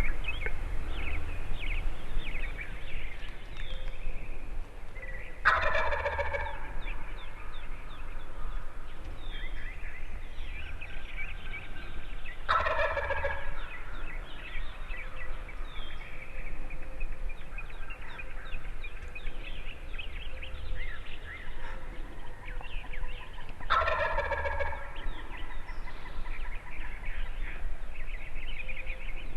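Wild turkey gobbler gobbling close by, three loud rattling gobbles several seconds apart, each about a second long.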